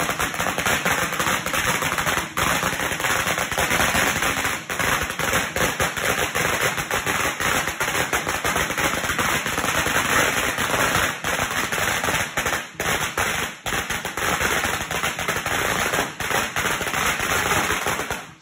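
A long hanging string of Chinese firecrackers going off in a dense, rapid run of bangs.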